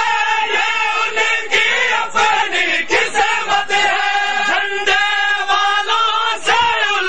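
A crowd of men chanting a noha together, a Shia lament, with sharp slaps of matam (hand-on-chest beating) marking the beat about once or twice a second.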